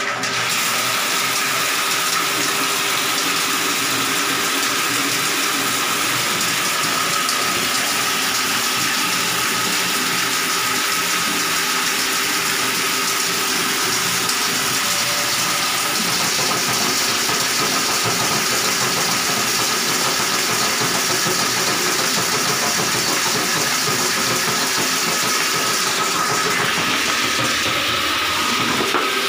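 Electric drain-cleaning machine running steadily with a high whine, its motor spinning the spiral steel cable down a clogged drain to clear the blockage.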